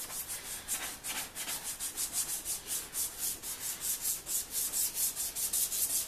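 Sandpaper rubbed back and forth over a plastic headlight lens wet with spray lubricant, in quick firm strokes, about four or five a second. This is the sanding stage that takes off the lens's yellowing.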